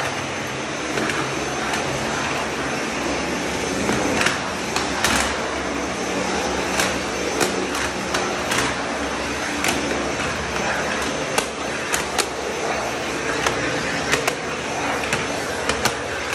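Vacuum cleaner running steadily with a thin high whine as its floor nozzle is pushed over tiled floor and stair treads, with frequent sharp clicks and knocks over the steady suction noise.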